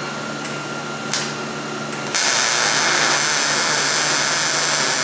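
Arc welding a sleeve pipe into a car's exhaust to replace a rotted exhaust flange. A brief blip of the arc comes about a second in, then a steady welding hiss starts about two seconds in and holds.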